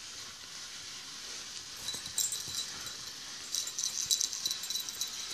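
Faint handling noise: soft rustling and light, irregular scratchy clicks over a steady hiss, growing busier about halfway through.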